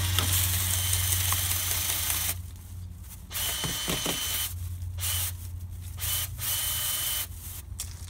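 Power drill spinning a dryer-vent cleaning rod inside the vent duct, the rod scraping and rattling against the duct in several bursts separated by short pauses, over a steady low hum.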